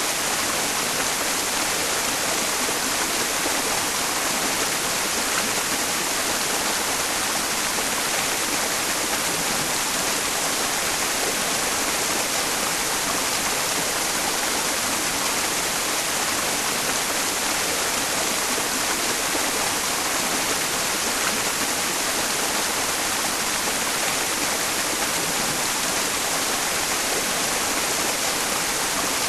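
Mountain stream flowing, blended with white noise: a steady, even hiss-like rush, strongest in the high range, with no changes.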